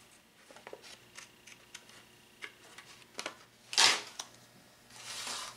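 Light scratches and clicks of a pen-style hobby knife scoring a photo along a plywood pattern. A loud, sharp handling noise comes a little past halfway, then a softer rustle of about half a second near the end as the paper pieces are handled.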